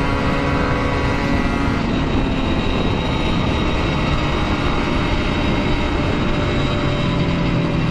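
Kawasaki Ninja 150RR two-stroke single-cylinder engine running at a steady cruise, mixed with wind rush on the helmet camera's microphone. Its pitch eases down a little about two seconds in.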